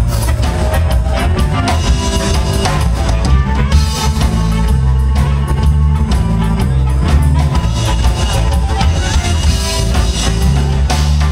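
Live amplified blues band playing: a drum kit, electric guitar and electric bass, with an amplified harmonica.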